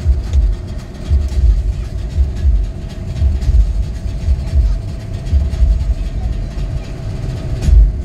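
Vehicle running along a road, heard from inside the cabin: a continuous low rumble of engine and road noise with irregular heavy low throbs and a faint steady hum.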